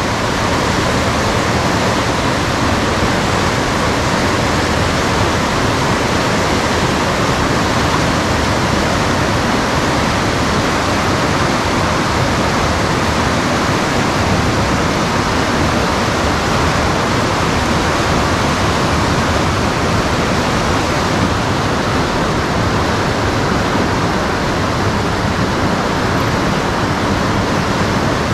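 River rapids: whitewater rushing steadily over rocks, an even, loud wash of water that swells up at the start and then holds constant.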